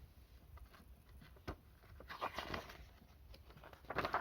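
Faint rustle of paper with a sharp click about a second and a half in and more rustling near the end: the page of a picture book being turned.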